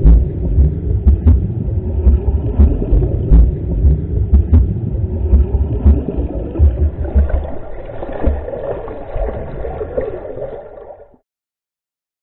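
Muffled underwater rumble and bubbling of water in a swimming pool, heard by a submerged camera, with scattered knocks; it fades out and stops near the end.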